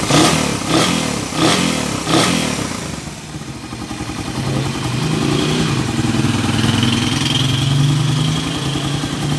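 Suzuki Raider 150's single-cylinder four-stroke engine revved in four quick throttle blips, then settling about three seconds in to a steady idle. The carburettor has been freshly cleaned and the idle mixture tuned.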